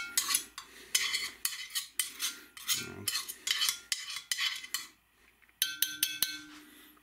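A steel tablespoon scrapes and clicks around the inside of a hot cast-iron roaster, spreading oil to bake on a seasoning layer. After a short pause near the end come a few quick ringing clinks of the spoon against the pot.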